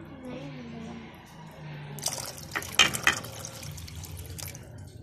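Water poured from a glass into a pot of mutton curry, splashing into the gravy. The pour starts about two seconds in, loudest in its first second, and stops shortly before the end.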